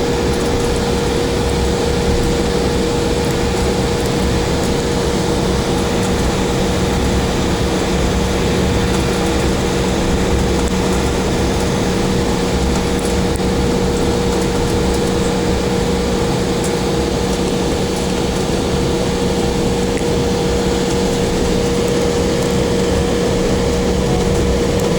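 Steady airliner cabin noise after landing: the jet engines at idle and the cabin air system make a loud, even rush with a constant mid-pitched hum over it.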